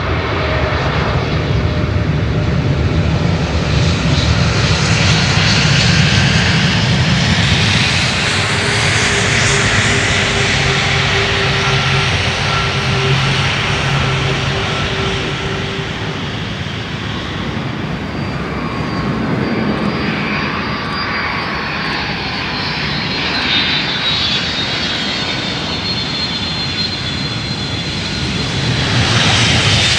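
Jet airliner engines on the runway during landing and roll-out, a steady rumble and roar. A high engine whine falls slowly in pitch through the last third.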